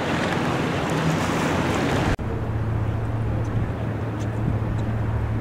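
Wind buffeting the microphone over water and boat noise aboard a harbour boat, which cuts off abruptly about two seconds in. It gives way to a steady low hum with a duller background wash.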